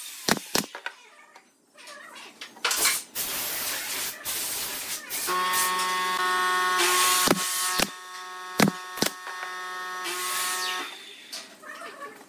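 A pneumatic brad nailer fires twice in quick succession at the start. Then pine boards knock and slide against each other as they are stacked by hand. From about five seconds in, a steady humming tone runs for about five seconds under the knocks.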